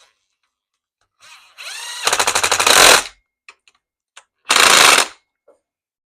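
Cordless impact driver running up and hammering a screw into the plastic trimmer housing for about a second, then a second shorter burst a moment later, with a few small clicks in between.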